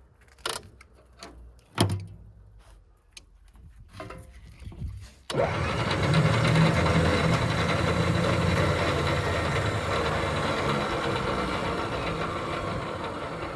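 A few clicks and knocks, then about five seconds in a Milwaukee-powered motor starts suddenly and runs steadily with a low hum.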